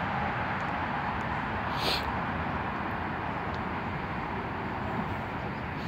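Steady outdoor rumble of distant vehicles with no clear pitch, fading very slightly, with a brief high hiss about two seconds in.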